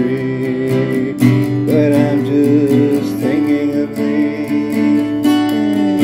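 Instrumental passage of a slow ballad: an acoustic guitar strumming steadily under a held melody line that slides between notes.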